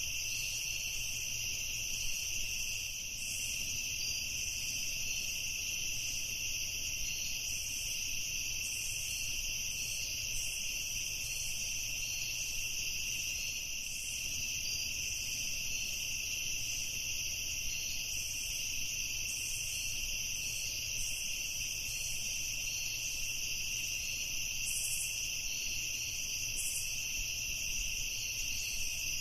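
Evening chorus of crickets: a steady, high-pitched trilling that runs on without a break, over a faint low rumble.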